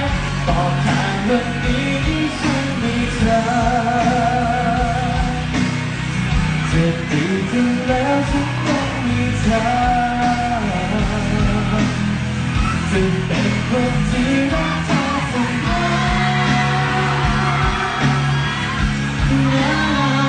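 Male singer singing a Thai pop song live into a handheld microphone over steady instrumental backing.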